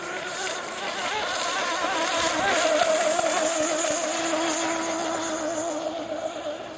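OS 40 VRM two-stroke glow engine on a tuned pipe in an RC rigger hydroplane, running at speed with a high buzzing note that wavers slightly in pitch. It grows louder as the boat passes close, about three seconds in, then fades.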